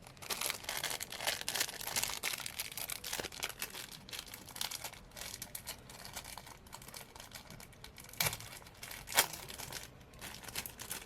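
Thin plastic crinkling and crackling as it is handled, a dense run of small crackles, with one sharp click about nine seconds in.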